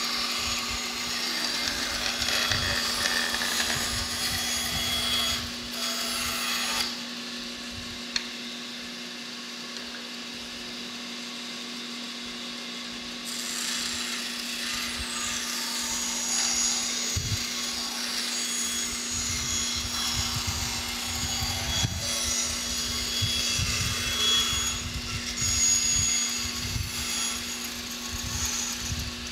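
Restored Crescent Machine Company angle band saw, built around 1915–1920 and fitted with a new blade, running with a steady hum while ripping a thin strip of wood. The cutting noise runs for the first seven seconds or so, drops away to just the saw running for several seconds, then picks up again as the next cut goes through.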